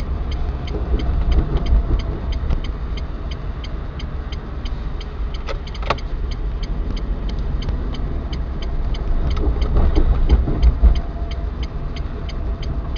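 Car engine and tyre noise heard from inside the cabin while driving along a city road, with a steady light ticking throughout.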